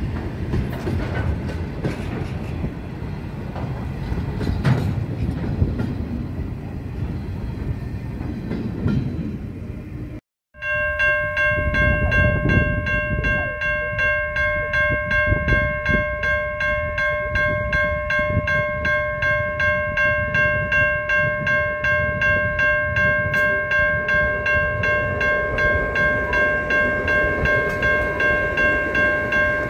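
A train rolling past with a rumble and clatter of wheels, cut off suddenly about a third of the way in. Then a level-crossing warning bell ringing steadily at about two strokes a second, with low rumble underneath, as an Adelaide Metro electric multiple unit approaches and rolls onto the crossing near the end.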